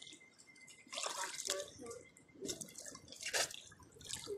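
Pool water splashing and lapping as a child paddles with her arms, in a few small irregular splashes.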